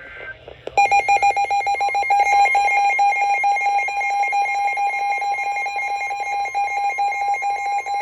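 Weather-radio alert tones: a rapid electronic warbling alarm starts about a second in. From about two seconds in a steady single-pitch tone, the 1050 Hz NOAA Weather Radio warning tone, sounds under it. Together they signal an incoming warning broadcast.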